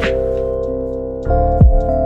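Background music: held keyboard-like chords with deep booming bass hits that drop in pitch, and a short hiss like a cymbal at the start.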